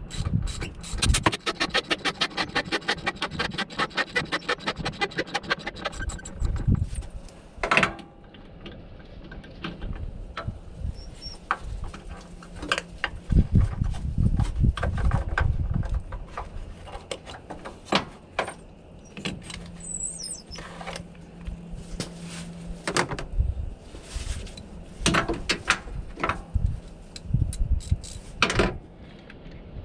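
Ratchet wrench clicking rapidly and evenly for about the first six seconds as the battery hold-down bolt is loosened, followed by scattered metal clanks and knocks as parts are handled.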